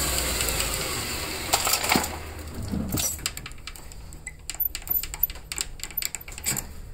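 Small metal lathe running with a cue shaft in its chuck, then shut off and spinning down to a stop about two to three seconds in. After it stops there is a scatter of light clicks and taps.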